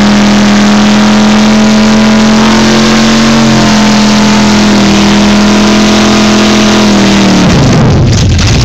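A car's engine is held at high, steady revs during a burnout, very loud from inside the car. About seven and a half seconds in, the revs drop away to a lower, rougher running.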